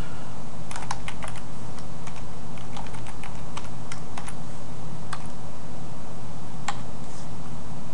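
Typing on a computer keyboard: irregular keystrokes, a quick run about a second in and scattered strokes after, over a steady low hum.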